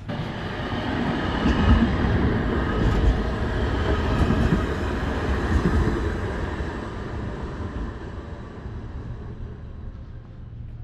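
Edinburgh tram going past: a rumble that swells over the first couple of seconds and fades away over the last few.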